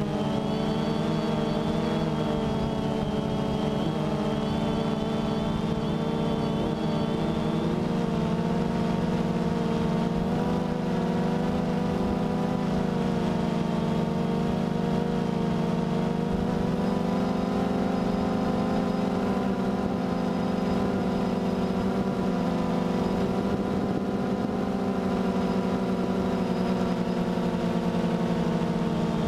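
DJI Phantom 2 quadcopter's electric motors and propellers in flight, a steady droning hum picked up by the camera on the airframe, its pitch shifting slightly about halfway through.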